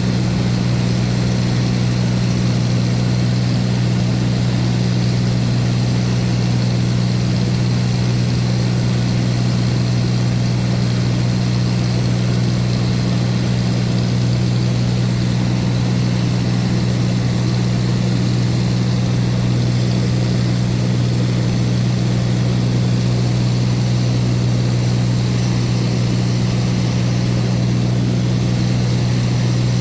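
Loud, steady engine and propeller noise of a light propeller aircraft in flight, heard from inside the cabin, with a low hum that holds one pitch.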